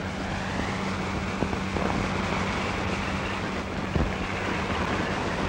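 Steady hiss with a constant low hum and a few faint clicks: the background noise of an old film soundtrack.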